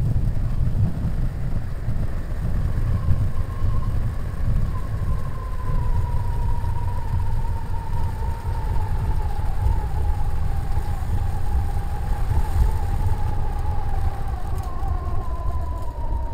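Microlight trike's engine and pusher propeller running with a heavy low rumble as the trike rolls over grass. Its whine drifts slowly lower in pitch through the second half, as the engine winds down and the propeller slows.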